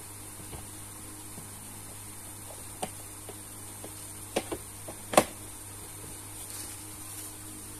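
A few short plastic clicks and knocks from the pole of a plastic basket rack being handled, the loudest about five seconds in, over a steady hum.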